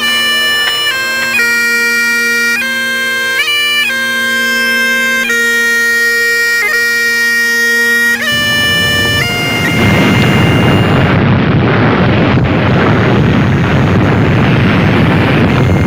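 Bagpipes play a tune, the chanter stepping between held notes over a constant drone. About eight seconds in, the piping gives way to a long, loud, dense rumbling roar of a huge explosion.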